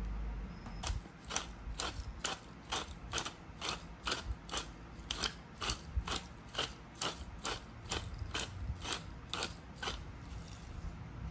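Hand-twisted pepper grinder grinding pepper onto the fish, its mechanism clicking in an even ratcheting rhythm of about two clicks a second that stops near the end.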